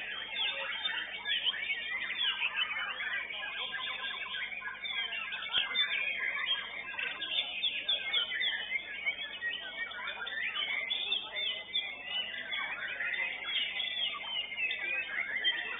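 White-rumped shama (murai batu) and other caged songbirds singing together: a continuous tangle of quick, high whistles, sweeps and trills.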